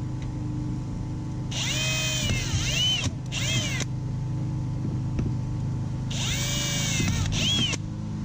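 Power drill boring the 1/8-inch pilot holes for the flush fitting's screws: two runs of a few seconds, each ending in a quick second trigger pull, the motor's whine rising and falling with the trigger. A steady low hum runs underneath.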